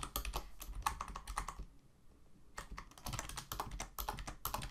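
Typing on a computer keyboard: runs of quick key clicks, with a pause of about a second in the middle.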